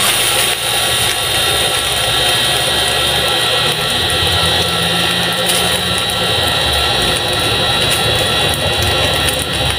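Diced chicken and chopped onion sizzling steadily in hot oil in a metal frying pan.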